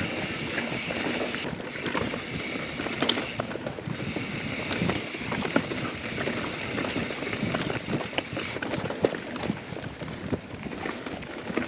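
YT Jeffsy 27 full-suspension mountain bike rolling fast over a rough, rocky singletrack: tyres rumbling and crunching on dirt and stones, with frequent knocks and rattles from the bike as it hits rocks.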